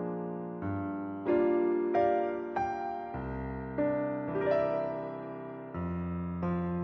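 Background music: slow, gentle piano or electric piano chords, a new chord struck every second or so and left to ring.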